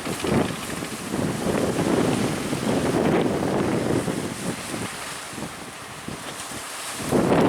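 Strong wind gusting across the microphone, rising and falling in buffets, over the wash of sea surf.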